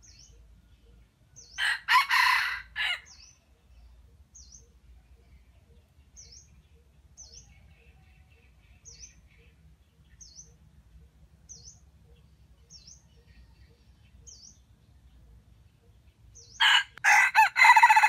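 Junglefowl rooster crowing twice: one crow about two seconds in and another near the end. Faint high chirps repeat about once a second in between.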